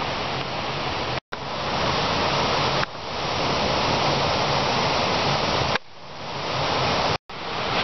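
Mountain creek rushing over rocks, a steady water noise, cut off for a split second about a second in and again near the end.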